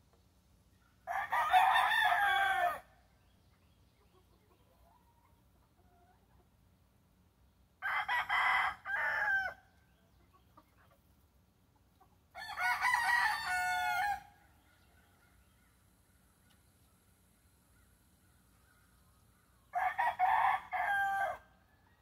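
Gamefowl stag, a young rooster, crowing four times, each crow under two seconds long and several seconds apart.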